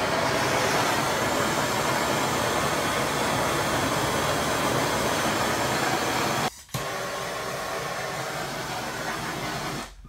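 Handheld gas torch flame hissing steadily as it is played over hanging steel panels to ready them for powder coating. The hiss breaks off for a moment about two-thirds of the way through, then carries on a little quieter.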